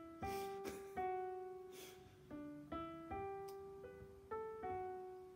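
Slow, quiet background piano music: single notes struck one after another, each left to ring and fade before the next.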